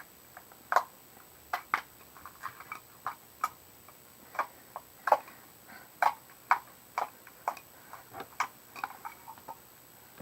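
Stiff homemade slime being squeezed and worked by hand, giving off an irregular run of short, sharp clicks and pops, about two or three a second.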